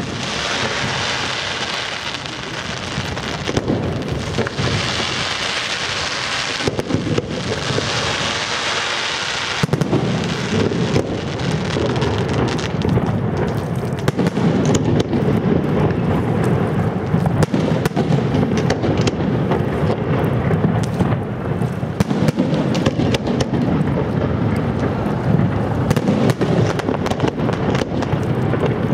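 Fireworks display. For the first ten seconds there is a dense hissing crackle. About ten seconds in it turns into a heavier, continuous run of rapid bangs and crackles.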